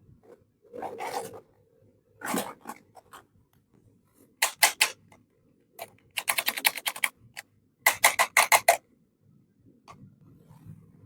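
Small plastic toy pieces and packaging being handled: two short rustling scrapes, then three bursts of rapid sharp clicking, about ten clicks a second.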